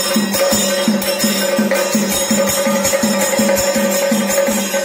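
Chenda melam, Kerala temple percussion: chenda drums beating a fast, even rhythm of about four strokes a second, with a steady held tone and bright cymbal shimmer over it.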